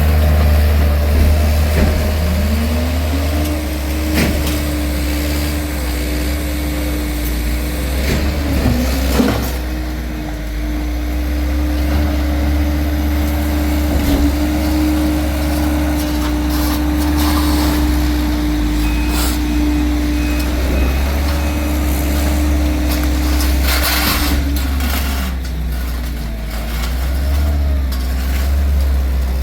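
Heavy truck or work-machine diesel engine running under a deep low rumble; its pitch rises about three seconds in, holds steady for some twenty seconds, then drops back near the end. A few sharp knocks and clanks sound along the way.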